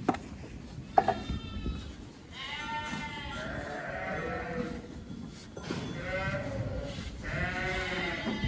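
Sheep bleating, several calls one after another and overlapping, with two sharp knocks within about the first second.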